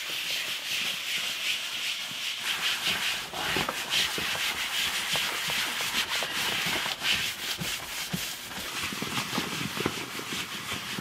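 A cotton t-shirt rag rubbed back and forth over a car seat's upholstery, working leather cleaner and conditioner into it in quick repeated strokes.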